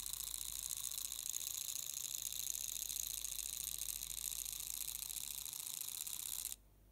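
Tomix N-scale Shinkansen 0 series motor chassis running on the track under digital control: a steady high whir of the small electric motor and gears, which cuts off suddenly about six and a half seconds in.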